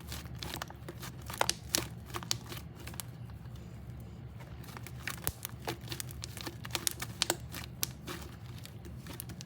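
Freshly made slime being squeezed and stretched by hand, making irregular small clicks, pops and crackles over a low steady hum.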